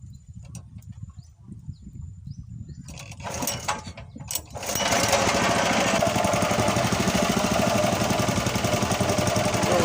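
Boat's Honda GX120 single-cylinder four-stroke engine, low and quiet at first, comes up to full throttle about halfway through and then runs loud and steady.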